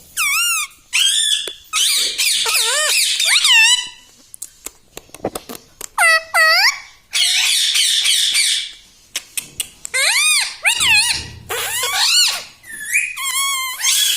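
Indian ringneck parakeet calling: a string of shrill, wavering squawks and harsh screeches, with a few short clicks between them.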